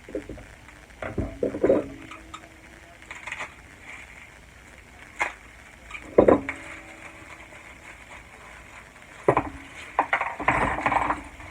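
Small metal parts of a powder-measure linkage kit being handled on a bench: scattered clinks and knocks, some ringing briefly. The loudest knock comes about six seconds in, and a busy cluster comes near the end.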